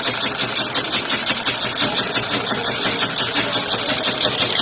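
Slipper-sewing machine running at speed, its needle mechanism clattering in a fast, even rhythm.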